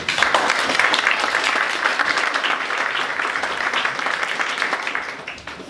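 A small seated audience applauding, a dense patter of many hands clapping that fades out near the end.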